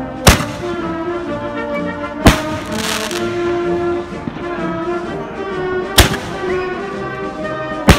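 Patriotic brass-band music playing, punctuated by four sharp, loud firework bangs spaced about two to four seconds apart.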